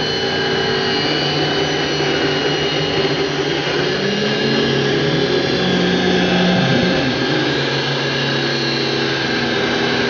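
Ridgid table saw ripping rough maple stock, the blade running steadily under load as the board feeds through.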